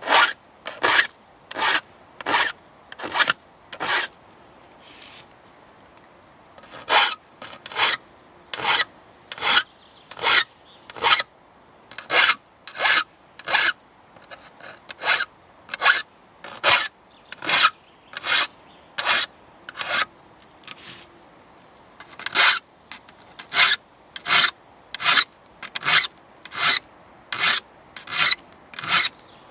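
Flat hand file rasping across the steel teeth of an old rusty crosscut saw, sharpening it tooth by tooth. The strokes are short and regular, about one every three-quarters of a second, with two brief pauses.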